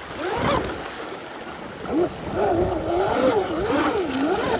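Traxxas M41 RC catamaran's brushless electric motor whining at speed, its pitch wavering quickly up and down from about two seconds in, over the wash of the sea.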